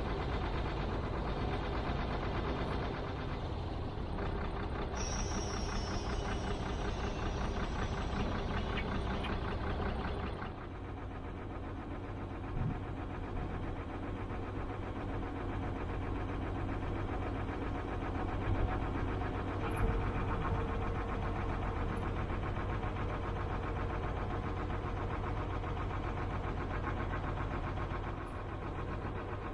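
Diesel engine of a DAF recovery truck idling, a steady, close rumble. The sound changes abruptly and drops a little about ten seconds in, then the idle carries on.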